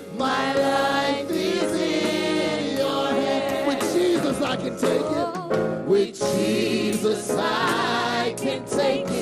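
Gospel choir singing with instrumental backing, the voices bending and gliding through melismatic runs.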